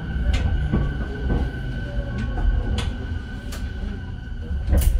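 Running noise of a JR East E217 series electric train heard inside a motor car: a steady low rumble of wheels and motors with a steady high tone, clicks over rail joints, and a louder rush just before the end.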